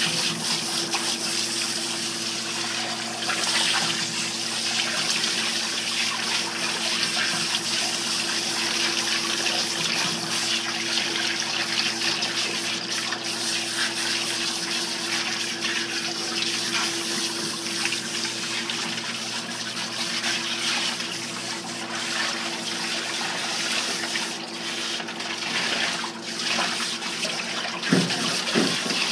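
Hand-held grooming-tub sprayer running, water spraying into a standard poodle's wet coat with a steady hiss. A steady low hum sits underneath, and there is a brief knock near the end.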